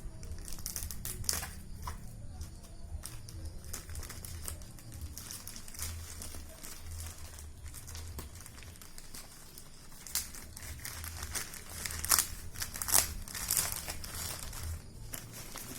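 Product packaging being handled and opened, crinkling and rustling in scattered bursts, with the loudest sharp crackles about twelve and thirteen seconds in.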